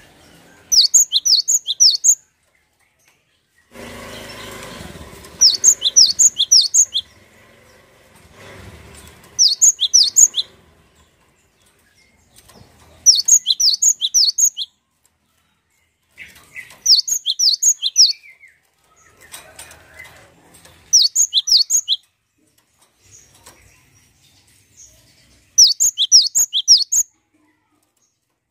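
Cinereous tit (gelatik batu) calling: short phrases of rapid, high chirps, each lasting about a second and a half and repeated roughly every four seconds, seven times in all.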